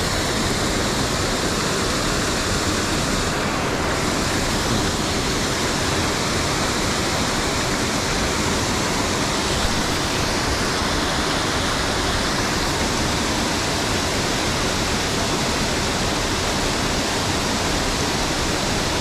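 Small waterfalls pouring over rock ledges into a creek pool: a steady, even rush of falling water.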